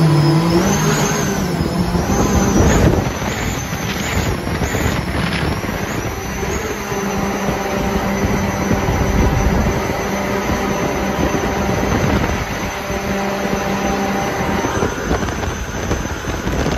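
Mini jet boat running flat out on the river: a steady engine drone over the rush of its water jet and spray, with a high whine that climbs in the first second or so.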